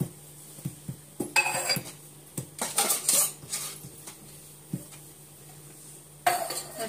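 Dishes and cutlery clinking and clattering in several short bursts of knocks and jingles.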